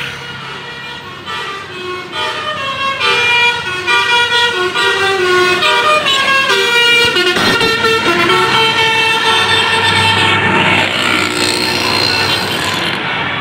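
Tour bus's basuri musical horn playing a telolet tune: many short horn notes stepping up and down in pitch, with gliding notes near the end.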